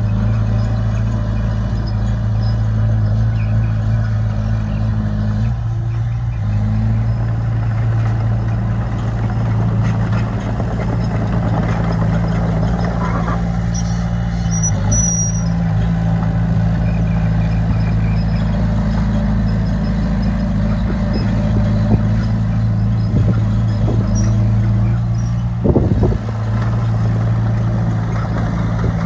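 Bulldozer's diesel engine running steadily under work, its note shifting about six seconds in and again midway, with a brief metallic clatter near the end.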